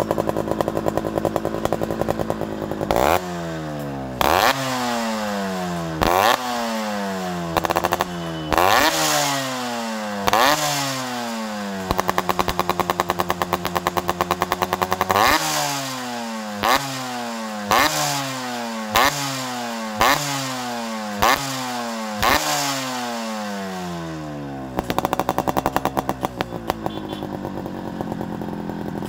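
Yamaha RX two-stroke single-cylinder motorcycle engine idling through an aftermarket chrome 'chamber' silencer, then revved in a string of quick throttle blips, each rising sharply and falling back, about one every second or two. A steady higher rev is held for a few seconds midway, and it settles back to idle near the end.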